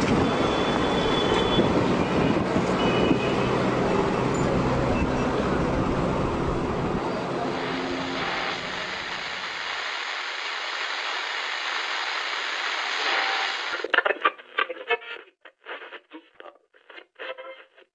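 Steady vehicle noise, with a few short high tones in the first few seconds. The deep part of the noise drops away about ten seconds in. From about fourteen seconds it gives way to short, broken sounds.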